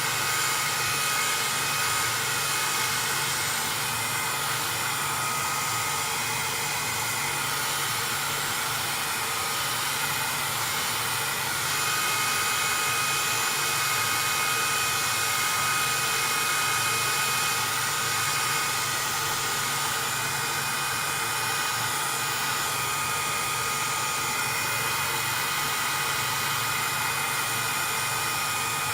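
Electric heat gun running on its medium setting, aimed at a PlayStation 3 motherboard's processors to heat them. It makes a steady blowing rush with a thin high whine that drops away for several seconds and then comes back.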